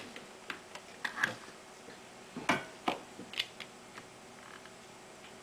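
A few light, irregular clicks and taps as a printed circuit board is handled and shifts on its plastic enclosure while a soldering iron and solder wire are set to its pins.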